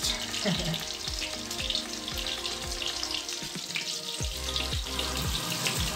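Chicken-breast chops frying in hot oil in a frying pan, a steady sizzle. A regular low thump about twice a second runs underneath.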